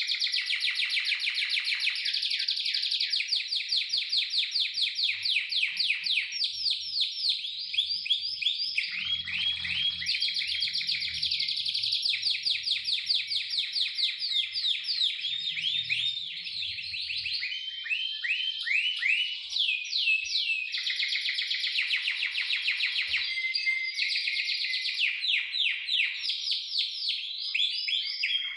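Male domestic canary singing a long, unbroken song of fast trills and rolls, switching from one rapidly repeated phrase to the next every second or two.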